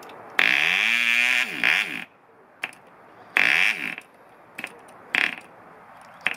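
Red Fin 0.49 model two-stroke diesel engine, hand-flicked, fires in two short bursts: one of about a second and a half, then a shorter one. Each time the pitch rises and then sags as the engine dies, with sharp clicks of the propeller being flicked in between. The engine had just been flooded.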